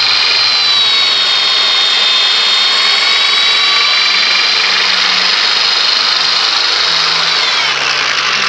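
Electric power drill, rigged as a lathe, running steadily at high speed as it spins a PVC pipe held against the jaws of locking pliers; its whine drops in pitch near the end.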